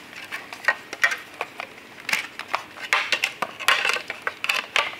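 Irregular clicks and knocks of hard plastic and metal parts being handled and fitted together: Volvo 240 wing mirror housings, mirror glass and motor parts knocking on one another and on the table.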